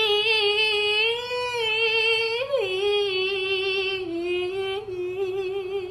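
A single voice singing one long, high held note with a wavering vibrato, its pitch jumping up and dropping about halfway through, then carrying on a little lower.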